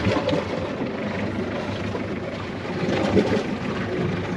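Steady rushing wind and sea noise on an open boat at sea.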